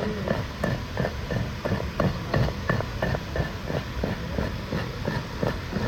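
A rapid, slightly uneven series of hammer taps, about four a second, typical of a farrier's hammer working on a horseshoe or hoof.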